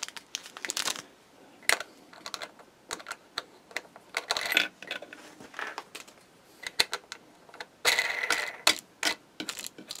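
Small metal wing nuts clicking and clinking as they are handled and set onto bolts in a wooden feeder lid, with a couple of short rustling bursts in between.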